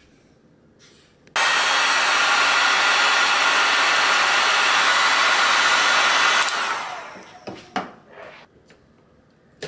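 Heat gun switched on about a second and a half in, blowing with a steady rushing hiss for about five seconds, then switched off and winding down over a second. It is softening the glue that holds a connector plug on an espresso machine's control board. A few light clicks of handling follow near the end.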